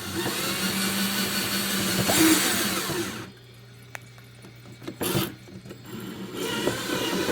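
Cordless drill running a glass-and-tile bit into a glazed ceramic pot with water, a steady motor whine over a grinding hiss. It runs for about three seconds, stops, gives a short burst, and starts again near the end.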